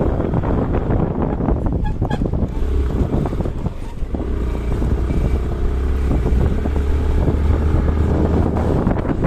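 Motorcycle engine running as the bike rides slowly over a rough dirt road, with wind buffeting the microphone and a steady low hum.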